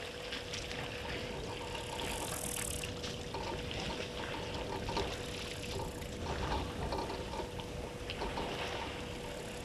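Water sloshing and trickling at a waterhole, with many small crackles and a steady faint hum underneath.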